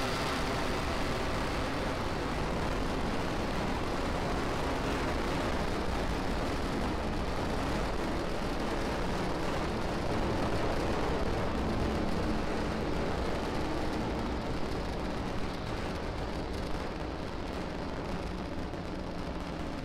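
Falcon 9 first stage's nine Merlin 1D rocket engines rumbling as the rocket climbs away after liftoff. The roar is steady, then turns duller and slightly quieter in the last few seconds.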